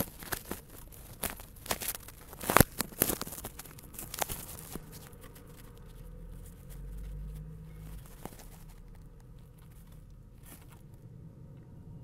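Scratching, tapping and rustling of kestrels moving about on the nest material, close to the microphone, with a cluster of sharp scrapes in the first few seconds. A brief low rumble comes about six seconds in.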